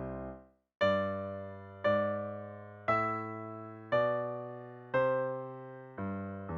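Piano playing slow, full chords, one struck about every second, each left to ring and fade. There is a brief pause just before the first chord.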